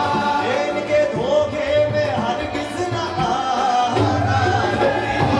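Live qawwali-style music: harmonium and tabla accompanying male voices singing long sliding, ornamented notes.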